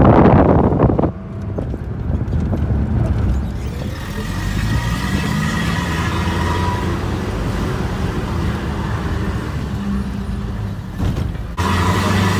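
Vehicle engine running with a steady low rumble as it drives along, heard from inside. A burst of wind buffets the microphone at the start, and the sound changes abruptly near the end.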